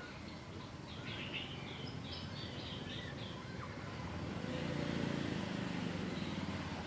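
A bird sings a quick run of about ten short high chirps over a steady low rumble of background noise. About four and a half seconds in, a low droning tone swells for a second or two.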